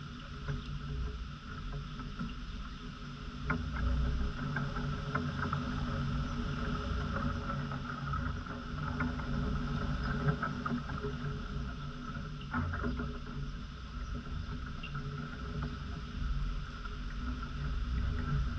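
Outdoor yard ambience: a low, uneven rumble like wind buffeting a ground-level microphone under a steady high hum, with a few faint clicks.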